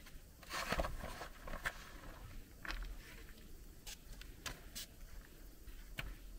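Grated cheese being spread by hand over pizza dough on a parchment-lined baking tray: a soft rustling burst near the start, then scattered light rustles and ticks.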